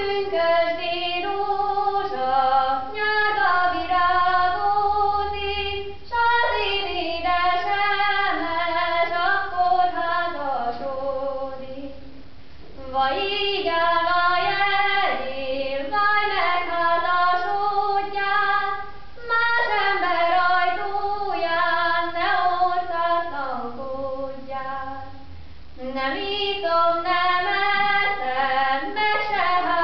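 A young female voice singing a folk song unaccompanied, in phrases of about six seconds with short breaks between them.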